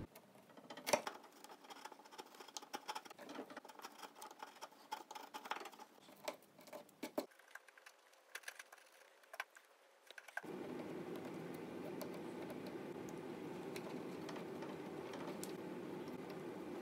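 Narrow chisel paring small chips off the corner of an oak edge, a run of light ticks and scrapes for about seven seconds that thins out afterwards. About ten seconds in a steady faint hum of background noise takes over.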